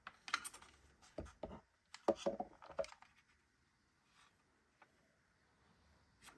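Small plastic parts of a toy steering linkage being handled and pushed together by hand: a run of light clicks and knocks over the first three seconds, then near quiet with a couple of faint ticks.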